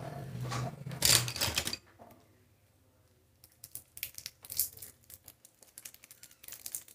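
Plastic wrapping on a pack of trading cards being handled, then picked and torn at with a pencil tip. Loud rustling for the first couple of seconds, then after a short lull a run of sharp crinkles and clicks.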